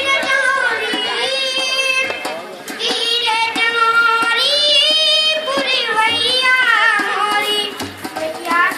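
Young ashram students (batuk) singing a Hindu devotional bhajan: a continuous melody with long, wavering held notes.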